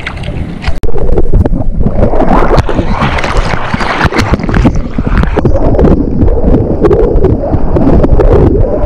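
Seawater rushing and splashing right at the microphone as a surfboard catches and rides a wave, with wind buffeting the mic. Loud and continuous after a brief dropout just under a second in, full of sharp spatters of spray.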